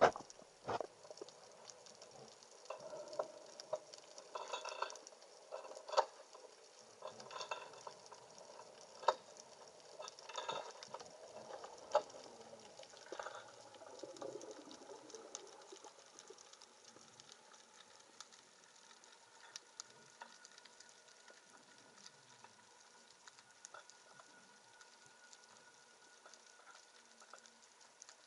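Underwater ambience heard through a camera housing: a faint fizzing crackle with scattered sharp clicks, busiest in the first half, and a faint steady tone in the second half.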